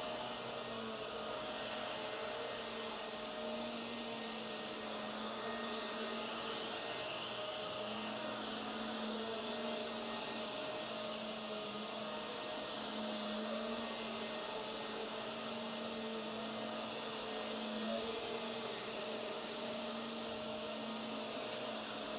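Hoover WindTunnel Tangle Guard upright vacuum running steadily with its brush roll on: an even motor rush with a thin, steady high whine over it.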